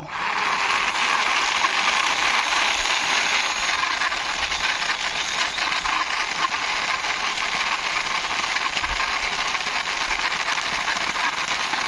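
Diecast toy double-decker bus pushed along by hand, its small wheels rolling with a steady, grainy rattle.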